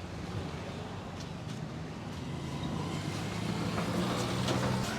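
Street traffic: a motor vehicle's engine running with a low hum that grows louder over the last two seconds as it comes closer.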